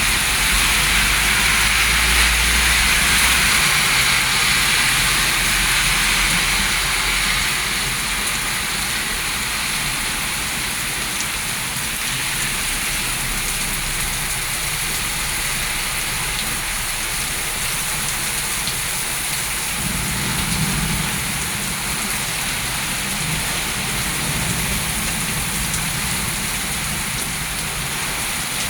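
Heavy rain pouring down in a steady hiss, a little louder for the first several seconds, with a low rumble under it at the start.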